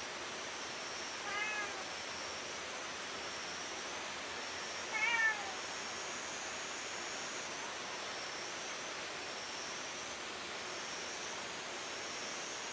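An orange tabby cat meows twice: a short meow about a second in, then a louder, longer one about five seconds in that falls in pitch at its end.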